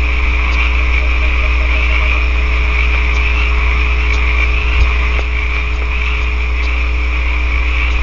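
Steady frog chorus, a continuous high trilling band, heard over a strong electrical hum and hiss from the nest-box camera's audio.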